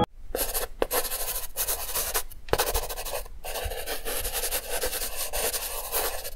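Permanent marker pen drawing on paper: a scratchy rubbing of the felt tip along the lines, in strokes with short breaks between them.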